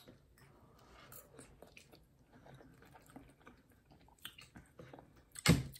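Quiet, close-up chewing of a forkful of lettuce and chicken burrito bowl, with a few small crisp clicks from the fresh lettuce.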